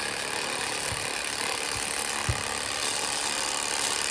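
Electric fillet knife running steadily as it cuts through a bluegill, with a faint low knock about two seconds in.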